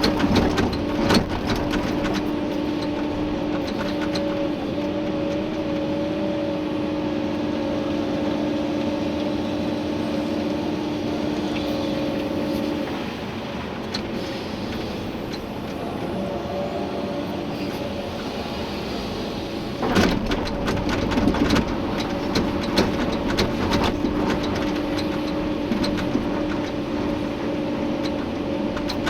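Komatsu PC290-11 excavator's diesel engine and hydraulics running under load with a steady hum and whine, heard from inside the cab; the whine eases off for a few seconds about halfway through. Clanks and knocks of the bucket working gravel come near the start and again from about two thirds of the way in.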